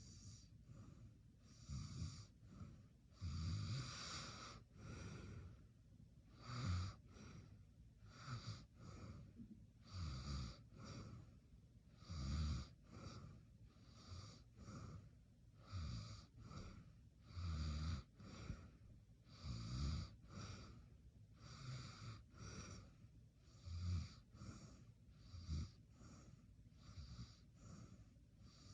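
A person snoring in their sleep. Each breath is a low snore with a breathy hiss, and the breaths come about every two seconds. The snoring is fairly faint.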